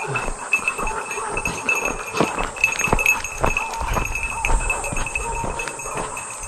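Footsteps crunching on a dirt track strewn with gravel and dry twigs, uneven and roughly one or two a second, with insects chirping in a steady pulsing trill.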